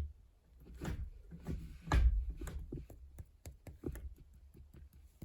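Porsche 924 gear shift lever being moved and rocked by hand, giving irregular clicks and knocks from the shift mechanism, with a few heavier clunks about one and two seconds in. The freshly rebuilt lever no longer rattles.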